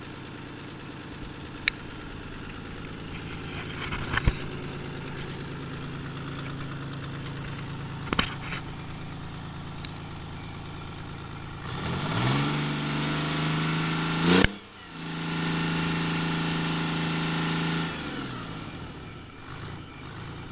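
Detroit Diesel 6V92T two-stroke V6 turbo diesel running on a test stand. It idles steadily, is revved up about twelve seconds in and held at a higher speed, with a sharp click and brief dip midway, then drops back to idle near the end.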